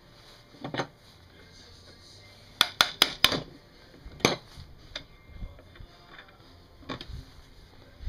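Sharp metallic clinks and knocks as a Seagull outboard's magneto flywheel is handled and lifted off its crankcase test rig: one a little under a second in, a quick run of four about three seconds in, then two more, spaced out.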